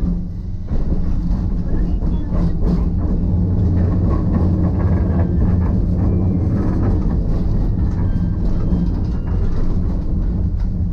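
Hiroshima Electric Railway type 1000 tram running along its line, heard from inside the passenger cabin: a steady low rumble of wheels and motors, with a few sharp clicks from the wheels on the track.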